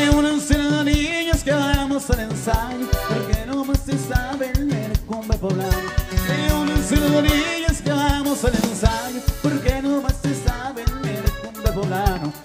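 Live norteño music: a button accordion plays over a bajo sexto, electric bass and a drum kit keeping a steady beat.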